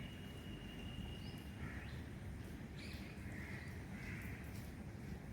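Birds calling outdoors: short repeated calls over a steady low rumble.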